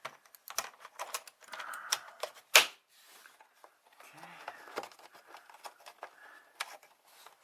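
Hand work on car parts: irregular small clicks and clinks of metal parts and tools being handled, with one sharp, louder click about two and a half seconds in.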